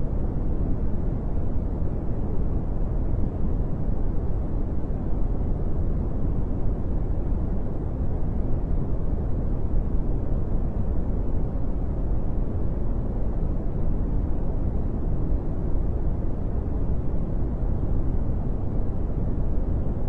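Brown noise: a steady, unchanging deep hiss, heaviest in the low rumble and thinning out toward the highs.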